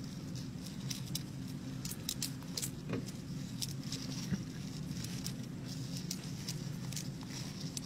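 Irregular light clicks and scratching ticks, many per second and uneven, over a steady low hum: small insect legs and a scorpion scrabbling and tapping against each other and a hard surface as they struggle.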